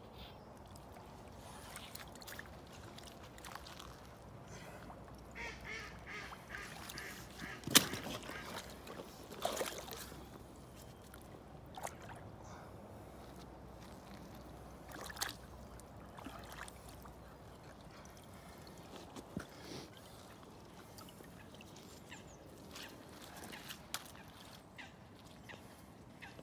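Waterfowl calling in a short run of repeated calls, with light water splashes from a large sturgeon held in a landing net at the water's edge, and a single sharp knock about eight seconds in, the loudest sound.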